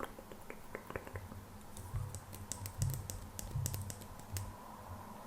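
Light, irregular tapping and clicking of fingertips and nails on hard objects, with a few soft low thuds in the middle.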